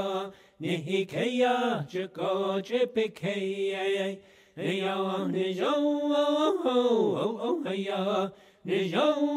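A solo voice chanting in long held notes that bend and slide down in pitch, in phrases broken by short pauses.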